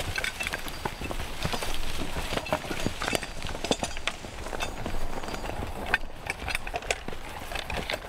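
Belgian draft horse at work skidding logs through the woods: its hoof steps and an irregular scatter of knocks and clicks.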